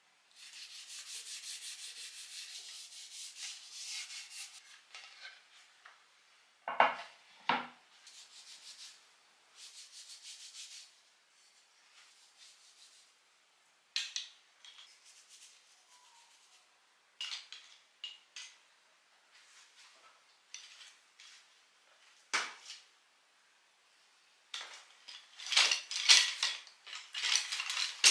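A cloth rubbing oil into the surface of a wooden board, a steady scrubbing hiss in stretches. Two sharp wooden knocks come about seven seconds in and another past twenty seconds. Wooden spoons and utensils then click and clatter against each other as they are picked up and laid out, densest near the end.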